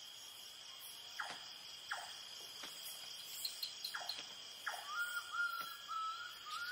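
Forest night ambience: a steady, fairly quiet trilling chorus of crickets, with a few short falling calls over it and, near the end, a wavering warbled call.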